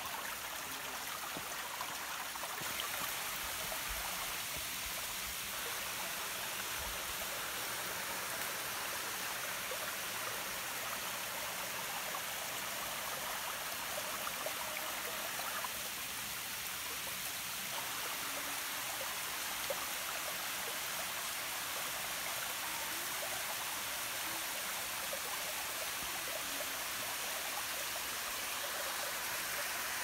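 A thin flow of water running and splashing over rock at a waterfall that is low on water: a steady, even rushing sound.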